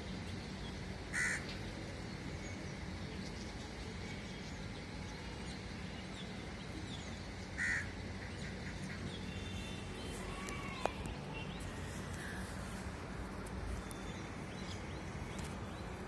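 Crows cawing, with two loud single caws about a second in and again about halfway through, and fainter calls between. A sharp click comes near two-thirds of the way, all over a steady low hum.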